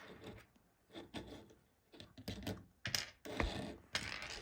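Light plastic clicks and taps, irregular, with a stretch of rubbing near the end, as Lego minifigures and pieces are handled.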